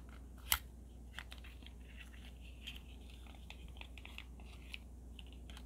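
Fingers opening a tiny cardboard box. A sharp snap about half a second in as a flap comes free, then small clicks and crinkly scraping of the card as the flaps are worked open.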